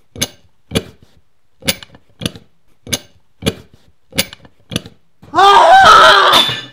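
A hand tool clicking sharply eight times, about one click every half second to a second, then a man screaming loudly in pain, his cry wavering in pitch.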